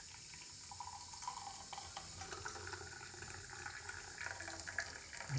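Hot milk pouring through a kitchen strainer into a glass, a faint steady trickle.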